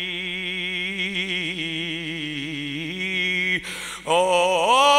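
A man singing a line of Punjabi verse unaccompanied, holding one long wavering note for about three and a half seconds. After a short break for breath he starts the next phrase, rising in pitch.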